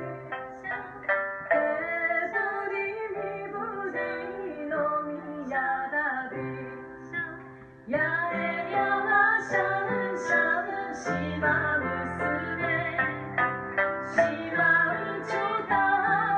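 Live Okinawan-style song: two women's voices singing together, accompanied by piano and a sanshin (Okinawan three-stringed lute). The music dips briefly just before halfway, then comes back fuller.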